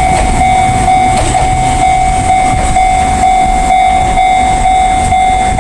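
Japanese level-crossing alarm ringing with a steady high tone, while an Enoden electric train runs through the crossing, its wheels rumbling and clicking on the rails.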